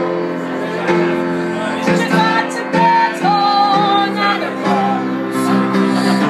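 Live pub piano accompanying a woman singing a cabaret song, with long held sung notes over steady piano chords.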